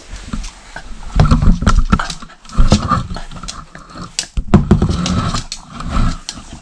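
A dog snuffling and rummaging at a treat toy, with irregular clicks and knocks as it works the treats out.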